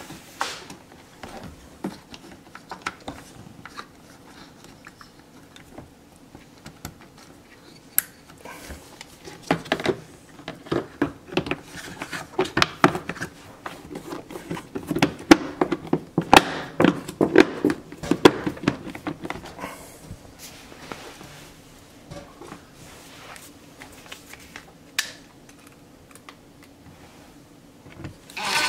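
Light plastic clicks, knocks and rattles from a Samsung dishwasher's black plastic base cover as it is handled and fitted back into place. The knocks come thickest in the middle stretch.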